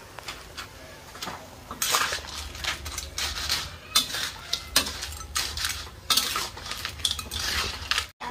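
A metal spatula scraping and clanking against a large metal wok as a heap of leafy greens is stir-fried. The clatter starts about two seconds in and goes on in quick, irregular strokes.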